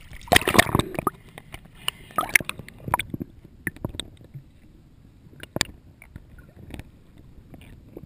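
Water splashing and sloshing as the head-mounted camera goes under in the first second, then muffled underwater sound with scattered sharp clicks and gurgling bubbles as the diver descends.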